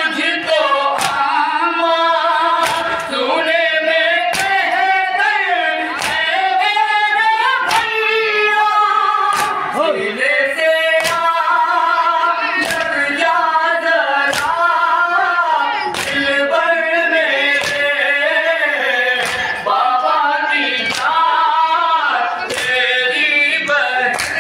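A noha (Muharram mourning lament) sung without instruments by a reciter and a group of voices. A sharp beat about once a second keeps time, typical of mourners' chest-beating (matam).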